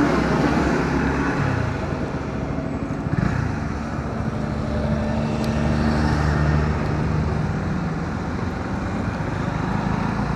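Honda CB125R's single-cylinder engine running at low speed in slow traffic, its note rising and falling a little, under steady road and wind noise.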